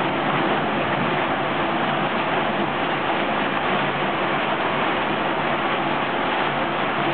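Kiverco 620 trommel screen running: a steady rushing rattle of rubble tumbling in its rotating mesh drum over the drone of the machine's engine.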